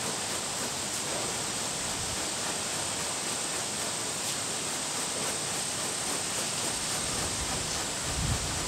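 Kong rubber dog brush rubbing through a dog's short coat, making a steady rustling hiss, with a soft low thump near the end.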